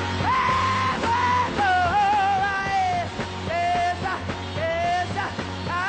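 Hard rock power trio playing, with a male lead singer wailing a string of long held notes with vibrato and no clear words; the notes step down in pitch a little after the first second and a half. Under the voice a heavy, steady bass and guitar keep going.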